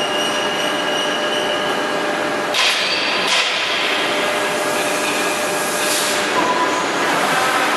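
Plastic injection molding machine with its IML robot running, a steady mechanical drone with a few faint whining tones. Short hissing bursts come about two and a half seconds in, again just after, and near six seconds.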